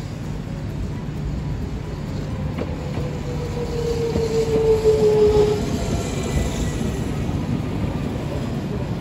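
Hiroden Green Liner 3950-series articulated tram rolling past at low speed, with a steady low rumble from its running gear. From about 3 to 5.5 seconds in, as the cars pass closest, a drawn-out whine sounds and falls slightly in pitch.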